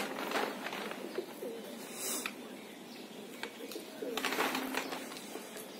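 Domestic pigeons cooing with low, soft calls, with a few short rustles of a plastic tarp being tugged: near the start, about two seconds in, and about four seconds in.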